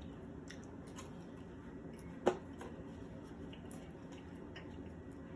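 Quiet eating sounds: small mouth clicks and soft chewing, with one louder short smack about two seconds in.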